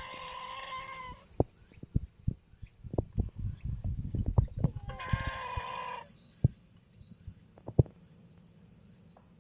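A sleeping cat snoring with a high, whistling squeak on the breath, about every five seconds (near the start and again about five seconds in). Scattered short, low knocks come in between.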